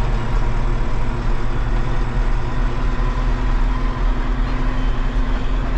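Tractor diesel engine running steadily at an even, unchanging speed.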